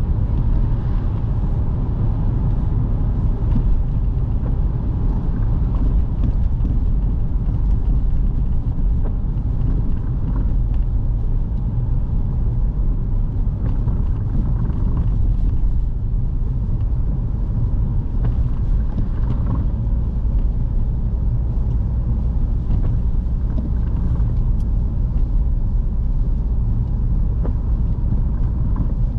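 Steady low rumble of a car driving on a wet road, heard from inside the cabin, with faint scattered ticks.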